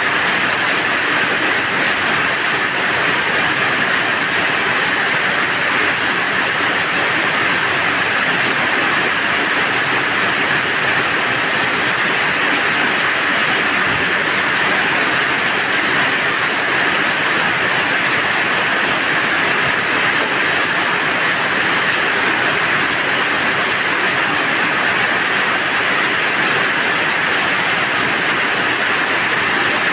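Steady rain with wind: an even, unbroken hiss that holds the same level throughout.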